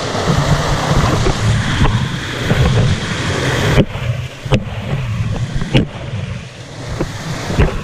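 Rushing water of a waterfall, with a low rumble of wind on the microphone and a few sharp knocks in the second half.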